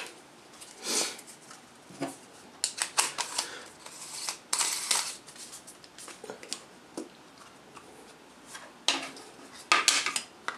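A rubber lens hood being handled and screwed onto a Vivitar 200mm telephoto lens: scattered scrapes, rubbing and light clicks of rubber against metal and plastic, with a few sharper knocks near the end as a lens cap is handled on a wooden table.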